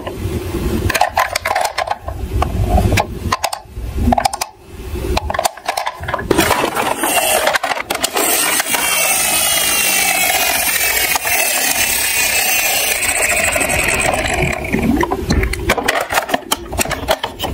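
Plastic toy ambulances being handled, with clicks, knocks and rattles. From about eight seconds in, a steady mechanical whirring comes from the larger toy ambulance for several seconds, then more handling clatter.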